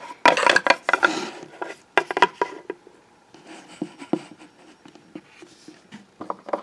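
Light clicks and taps of small plastic Littlest Pet Shop figures and a toy plate being handled and set down on a plastic toy kitchen counter, with some rubbing. The clicks come in a cluster over the first two seconds or so, go quiet, and pick up again near the end.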